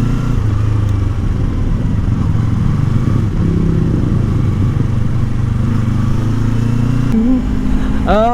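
Yamaha R25 V2's 250 cc parallel-twin engine running steadily while riding, with road noise. The engine note changes about seven seconds in.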